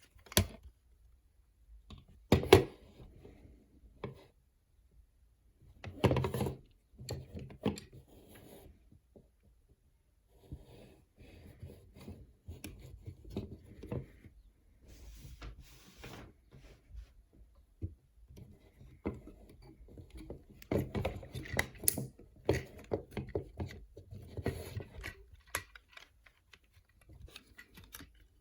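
Plastic action figure being handled: scattered clicks, knocks and rubbing of plastic parts, with a loud knock about two seconds in and another cluster of knocks around six seconds in.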